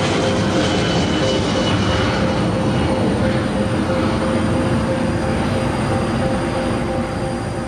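Boeing 737-800's CFM56-7B turbofan engines running at high thrust: a steady jet noise with a held whine whose upper tone falls slightly in pitch, starting to fade near the end as the aircraft moves away.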